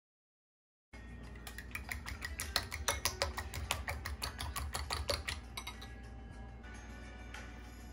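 A metal spoon beating eggs in a ceramic bowl: quick clinks against the bowl, about five a second, that stop about four and a half seconds in. Background music follows.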